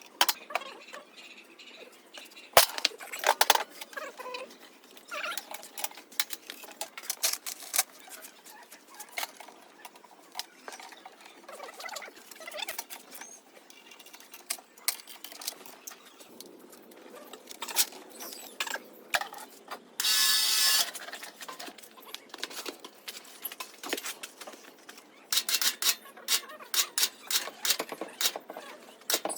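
Workshop handling sounds from work on a car: scattered sharp clicks, taps and knocks, with a buzz lasting about a second, twenty seconds in, and a quick run of taps near the end.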